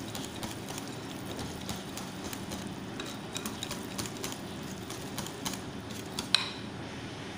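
Wire whisk beating pancake batter in a glass bowl: a fast, irregular run of light clicks and scrapes as the wires hit the glass, with one sharper clink a little past six seconds in. A low steady hum sits underneath.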